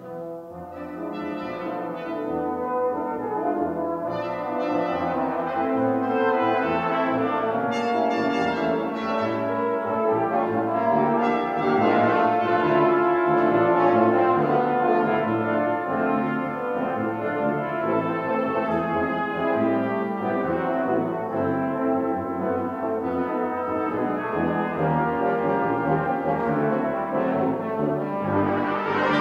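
Brass ensemble of trumpets, French horns, trombones and tuba playing a piece of concert music. After a brief lull at the start the music builds over the first few seconds and stays full, swelling again near the end.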